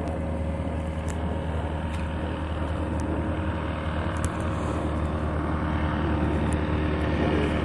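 Distant engine and propeller of an ultralight amphibious trike with a 110 hp BMW engine, running steadily and slowly growing louder.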